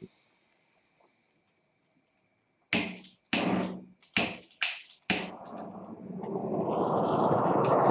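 Gas torch being lit: after a couple of silent seconds, five short sharp bursts come about half a second apart, then the flame holds and a steady rushing hiss builds up near the end.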